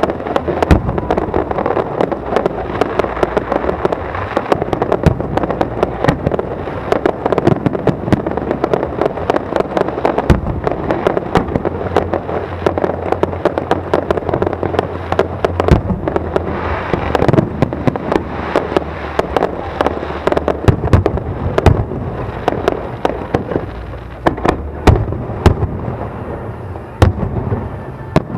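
Fireworks display in full flow: a dense, continuous barrage of shell bursts, sharp bangs and crackling, with deep booms among them.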